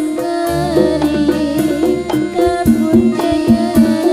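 Javanese jaranan ensemble music: hand-drum strokes under a melody that moves in steps, with a low steady hum in the first half.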